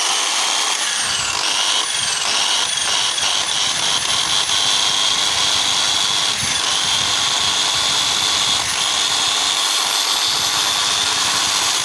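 Bosch Super Hobby 400 W 10 mm electric drill running with no bit in the chuck, a steady high whine whose pitch dips briefly a few times. The motor's fault is put down to worn carbon brushes.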